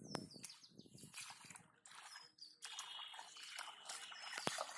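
Bare feet walking through wet grass and into shallow muddy water, with irregular small splashes and squelches, the splashing fuller from about halfway through.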